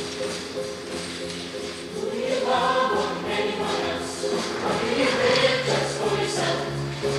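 A show choir singing with instrumental accompaniment; the voices grow louder and fuller about two and a half seconds in.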